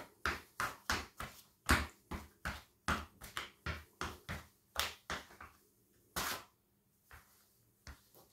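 White Fila trainers stamping quickly on squashed bread rolls and crumbs on a tiled floor, about three stomps a second. The stamping thins out after about five seconds, with one last louder, longer scrape about six seconds in and a couple of faint steps after it.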